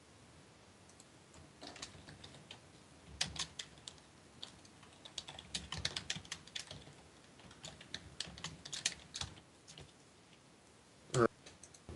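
Typing on a computer keyboard: irregular runs of key clicks, in bursts with short pauses.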